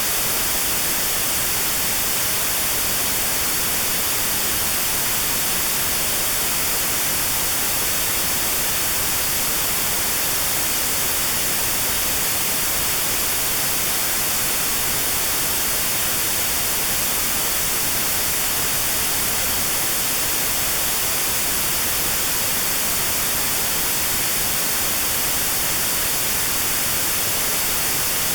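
Steady synthetic white noise with a narrow band around 4 kHz filtered out: notched sound therapy aimed at a 4 kHz tinnitus tone. A constant hiss, strongest in the high frequencies.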